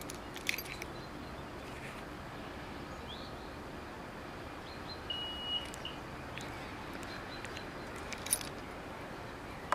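Faint outdoor background noise with a few soft clicks, a faint rising bird chirp about three seconds in, and a short, steady high tone a little after five seconds.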